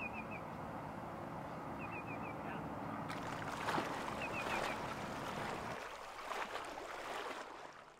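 Harbour water ambience: a steady wash with a low hum. Three times, about two seconds apart, comes a quick run of four short high chirps. The hum drops away about six seconds in and the whole sound fades out at the end.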